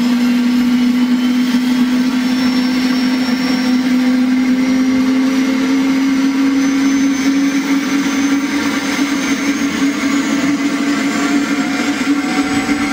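Small DC motor spinning a plastic propeller on a toy airplane, a steady buzzing whine whose pitch creeps slowly upward.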